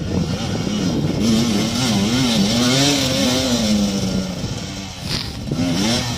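Motorcycle engine revving under load, its pitch rising and falling again and again as the throttle is worked.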